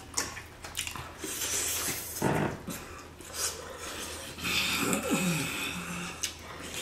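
People chewing and smacking on sauce-covered chicken wings, with clicks of the mouth and hissing, noisy breaths drawn against the heat of a very spicy sauce.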